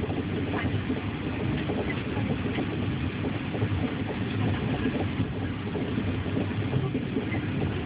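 Steady low rumble of a Chinese D-series high-speed electric train running, heard from inside the passenger car, with a few faint clicks.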